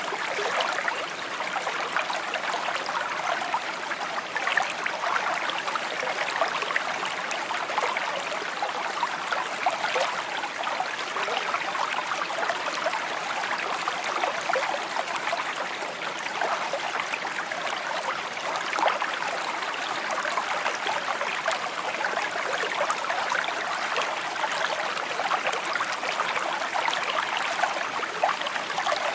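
A shallow creek babbling steadily over stones, a continuous bright trickling and splashing.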